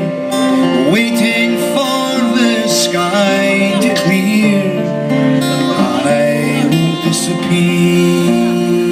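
Folk song performed live: strummed acoustic guitar with singing.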